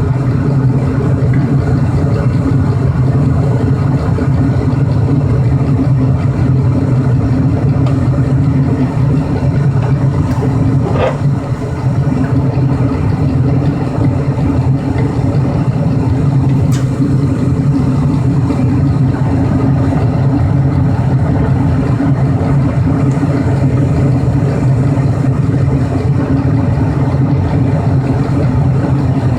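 1997 Lennox two-stage, variable-speed gas furnace running on high (second) stage: a steady, loud rush of burner and blower air over a constant low hum.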